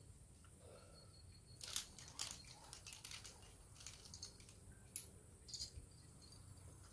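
Faint scattered clicks and rustles of a sport climber pulling up rope and clipping it into a quickdraw, loudest about two seconds in and again near five seconds.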